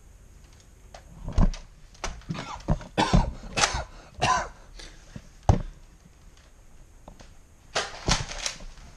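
Scattered sharp plastic clacks and knocks of Nerf foam-dart blasters being handled, with short noisy bursts about three to four seconds in and again near the end.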